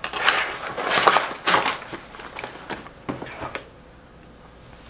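Crinkling and rustling of plastic snack packaging as it is handled, in a run of bursts that stops about three and a half seconds in.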